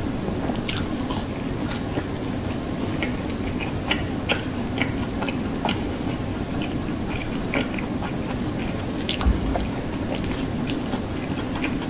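Close-miked chewing of French fries, with frequent short wet mouth clicks and smacks. There is one low bump about nine seconds in.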